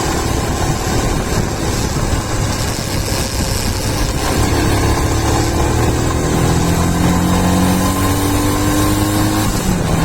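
Royal Enfield Himalayan's single-cylinder engine through its stock exhaust, pulling hard under acceleration while riding. The pitch climbs steadily from about four seconds in, then drops at a gear change near the end.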